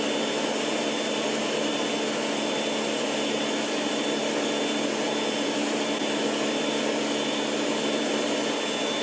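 Stationary circular saw running steadily, a constant motor hum with a thin high whine that does not change.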